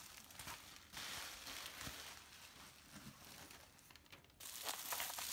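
Plastic bubble wrap rustling and crinkling faintly as hands handle the wrapped packages, growing louder near the end.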